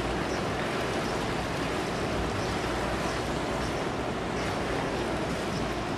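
Distant ocean surf and wind: a steady, even wash of noise with no breaks.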